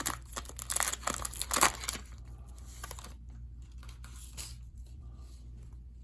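Crinkling and rustling of a trading-card pack wrapper being handled, loudest in the first two seconds, with a softer rustle about four seconds in.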